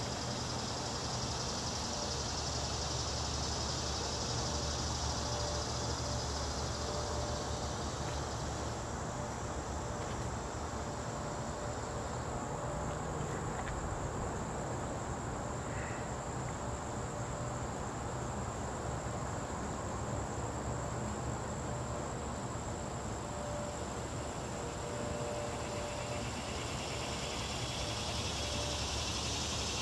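Late-summer insect chorus, a steady high shrill buzz that fades out about a third of the way in and comes back near the end, over a low steady rumble.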